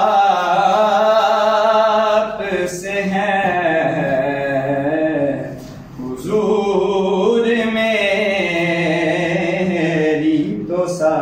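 A solo male voice singing an Urdu naat unaccompanied, in long, drawn-out, ornamented phrases, with a brief break about six seconds in before the next line.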